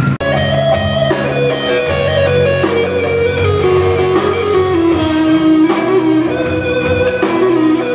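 Live rock band playing: electric guitar over a steady drum beat.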